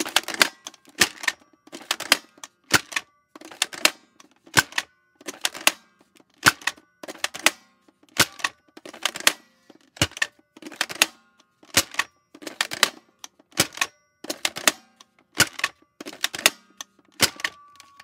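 Plastic Nerf foam-dart blaster being fired over and over, about one shot a second; each shot is a quick cluster of sharp plastic clacks.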